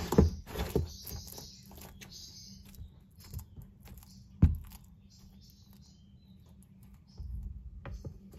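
Gidgee skink biting and chewing a red runner cockroach: irregular sharp clicks and crunches, densest in the first second, with one louder click about four and a half seconds in.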